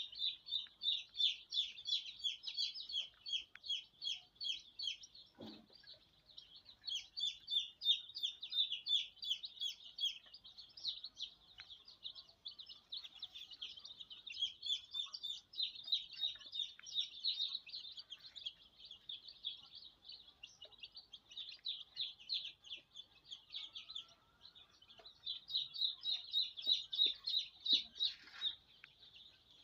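A crowd of young ISA Brown pullets peeping continuously, many high chirps overlapping, swelling louder in waves and easing off between.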